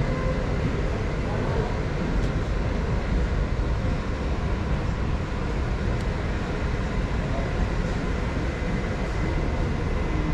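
Steady low rumbling background noise of a large warehouse-style store, with a faint constant hum and no distinct events.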